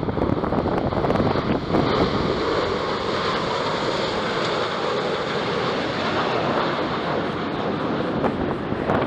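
Four Boeing F/A-18 Super Hornet jets flying by in formation, a steady jet roar with a faint whine that falls in pitch over a few seconds.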